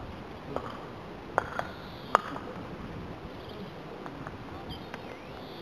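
Several sharp clicks and knocks, four in the first two seconds and the loudest just past two seconds, with fainter ones later, over a steady outdoor background with faint high bird chirps near the end.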